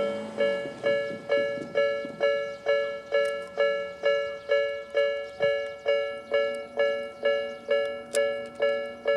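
Japanese railway level-crossing warning bell sounding the Tobu-style electronic "B" tone: a steady, evenly repeating two-tone ding, a little over two strikes a second, each strike fading quickly. It warns of an approaching train.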